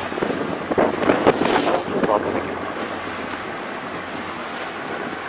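Wind buffeting the microphone on board a ship at sea, over sea noise and a low steady hum; the gusts are strongest in the first two seconds, then settle to a steadier rush.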